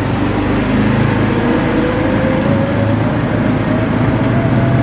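ATV engine running under way, its pitch climbing slowly as it picks up speed.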